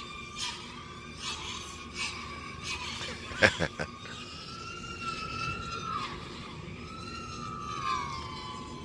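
Racing quadcopter's brushless motors running at locked full throttle, heard far off as a steady high whine that wavers slowly up and down in pitch. A few sharp clicks stand out over it, the loudest about three and a half seconds in.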